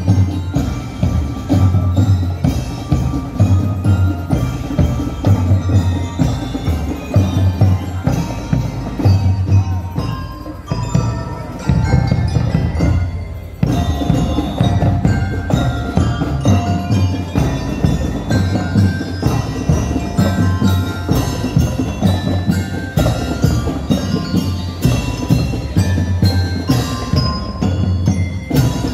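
School drum and lyre band playing live: drums beat a steady rhythm while bell lyres ring out the melody, with a brief break about thirteen seconds in.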